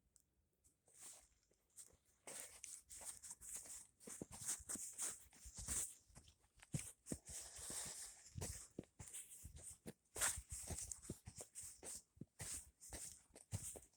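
Faint, irregular crunching steps, typical of footsteps in deep snow, starting about a second in and coming thick and fast from about two seconds in.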